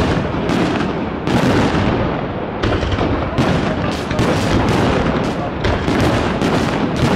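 New Year's fireworks going off in a dense barrage: many bangs and crackles in quick succession, several a second, with a brief lull about two seconds in.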